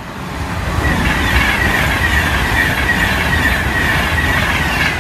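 Train passing close by at speed: the rush of wheels on rail builds over the first second and stays loud, with a steady high ringing tone over the rumble.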